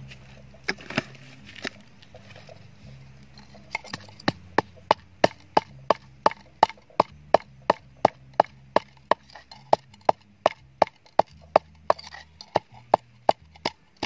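Wooden pestle pounding salt and chili in a wooden mortar. A few scattered knocks come first, then from about four seconds in a steady beat of roughly three knocks a second.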